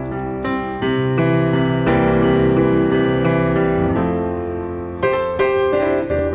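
Background piano music, a melody of separate notes over chords.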